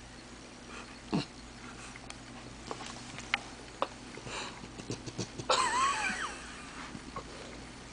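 A sleeping pet snoring and grunting in its sleep: scattered short snorts and grunts. About five and a half seconds in comes the loudest sound, a brief high-pitched sleep noise that bends up and down.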